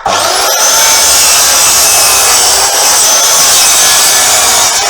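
Electric power saw spinning up sharply and running at a steady high whine while it cuts a small block of wood in half.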